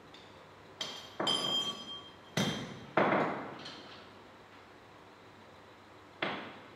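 Steel scrap parts being hammered: about five irregular metallic knocks in the first few seconds, some ringing, the loudest about three seconds in, then one more near the end.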